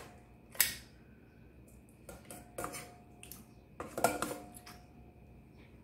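Metal kitchen tongs clinking against a stainless steel bowl as chicken pieces are picked up. Several sharp clinks, each with a short metallic ring, in three clusters: about half a second in, around two and a half seconds, and around four seconds.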